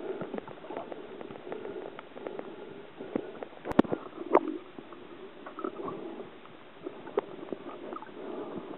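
Muffled underwater water noise picked up by a camera held beneath the surface, with scattered small clicks and crackles and two sharper knocks about four seconds in.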